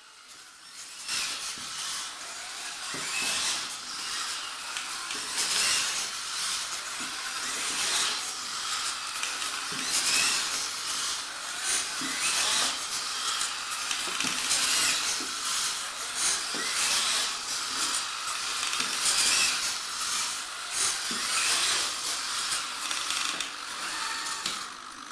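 Electric motors of a walking two-legged robot whirring, a high drill-like whine that swells and fades again and again.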